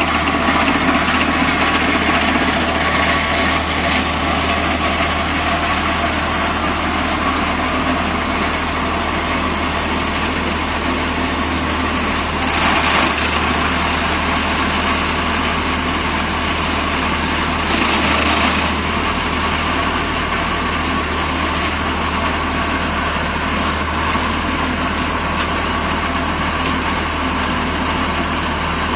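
Deutz D4006 tractor's air-cooled three-cylinder diesel running steadily under load, driving a PTO flail mulcher with shovel flails that spins through brush and undergrowth. Two brief louder noisy surges come about 13 and 18 seconds in.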